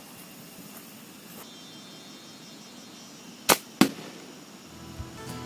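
Hunting slingshot rifle fired: two sharp snaps about a third of a second apart, about three and a half seconds in, as the rubber bands release and the shot goes off.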